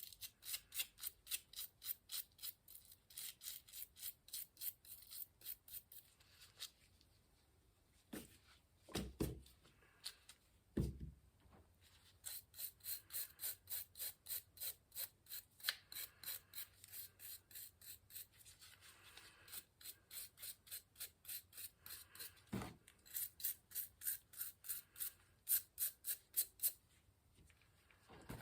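Quick back-and-forth scrubbing strokes, about three a second, as a rusty bicycle wheel part is cleaned by hand. The strokes pause now and then, with a few dull knocks as the part is handled.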